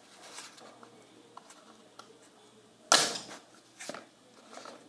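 Plastic lid of a Play-Doh tub pried off with a single sharp pop about three seconds in, amid faint handling of the plastic; a softer knock follows a moment later.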